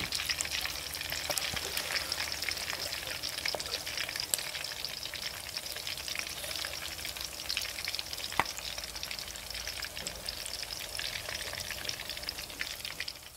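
Whole duck deep-frying in hot oil: a steady sizzle with many small crackles and pops, and one sharper pop about eight seconds in.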